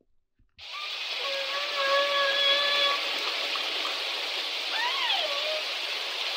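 Recorded whale or dolphin (cetacean) calls over a steady hiss, starting about half a second in: one long, steady, pitched call, then around five seconds in a shorter call that rises and then falls in pitch.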